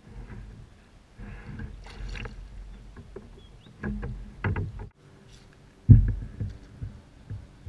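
Irregular knocks and thumps on a kayak, with the loudest thump about six seconds in.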